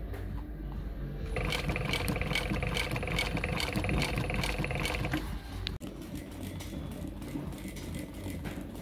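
Sewing machine running in one steady burst of about four seconds, starting about a second in, stitching a topstitch seam through leatherette seat upholstery, then stopping.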